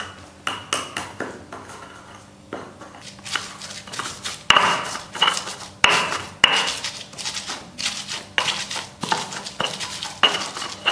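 Stone pestle (ulekan) pounding and grinding shallots, garlic and salt in a stone mortar (cobek) to make a spice paste. The sharp stone-on-stone knocks come irregularly, about two a second, each with a short ring.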